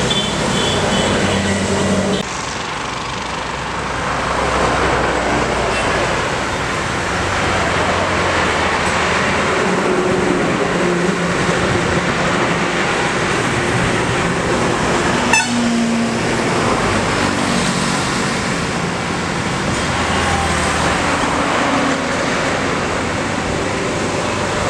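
Highway traffic going by: heavy trucks, a fuel tanker, cars and motorcycles passing one after another with engine and tyre noise that swells and fades with each pass. One short sharp sound stands out about halfway through.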